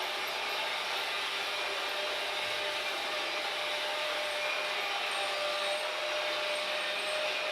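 Freight train rolling past, a steady rushing noise with a few faint thin tones on top.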